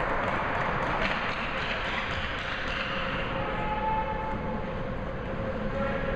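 Steady din of an ice hockey rink during a youth game, with faint shouts standing out now and then, one around the middle.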